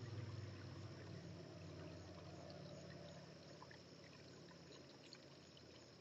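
Faint outdoor ambience: a steady low hum, strongest at first and easing off over the first few seconds, with a few faint, short high chirps or ticks.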